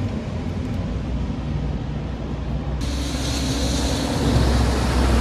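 A steady low rumble, with a steady hiss of falling rain that sets in abruptly about three seconds in.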